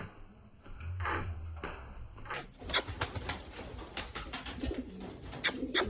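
Domestic pigeons cooing, with scattered sharp clicks and taps that become frequent after about two and a half seconds.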